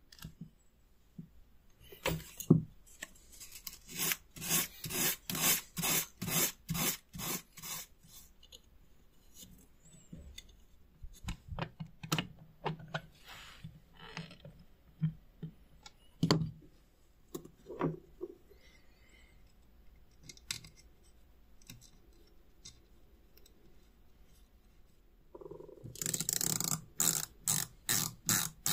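Hand work on the small parts of an antique electric doorbell: runs of short rhythmic scraping strokes, about three a second, with scattered clicks and taps between them. Near the end comes a quicker, louder run of strokes as a small screwdriver drives a screw into a brass terminal.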